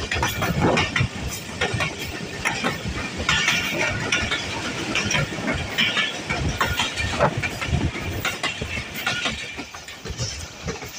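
Passenger train coaches running on the track: steel wheels clattering over the rails in a stream of irregular clacks and knocks over a continuous rumble.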